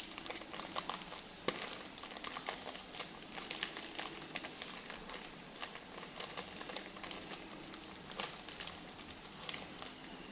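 Light, irregular crinkling and crackling of adhesive-bandage wrappers and backing paper being handled and peeled, made of many small clicks with a few sharper ticks, about a second and a half in and again near eight seconds.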